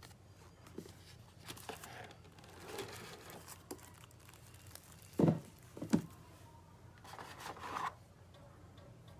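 Plastic packaging crinkling and rustling as the keyboard's accessories are unpacked, with scattered small clicks. Two short thumps come a little after five and six seconds in, the loudest sounds here.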